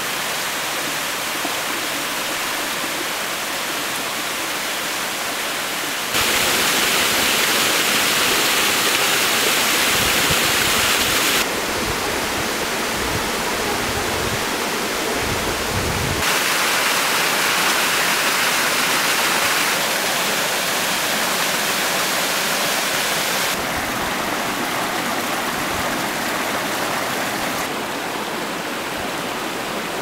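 Rushing, splashing water of a rocky forest stream and its small waterfalls. The steady noise steps louder or softer at each change of clip, with low rumbling gusts of wind on the microphone around the middle.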